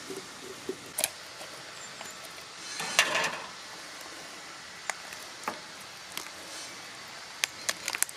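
Knife knocking and clicking against a wooden cutting board while a whole turkey is cut up and butterflied, with a short rasping sound about three seconds in and a quick run of sharp knocks near the end.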